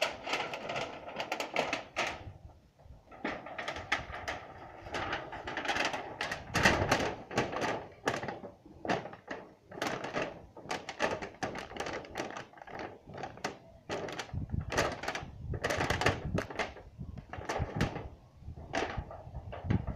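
Irregular sharp knocks and clatter, several a second, going on and off throughout.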